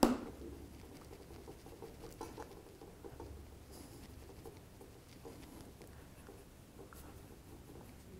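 Metal hardness-test pick scraping across the glass back of a Huawei Nova 3i phone: a sharp click at the start, then faint, irregular scratching.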